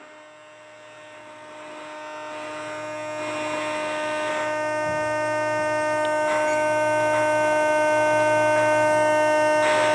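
Steady electrical hum and buzz made of several fixed tones, swelling gradually louder over the first seven seconds or so and then holding steady.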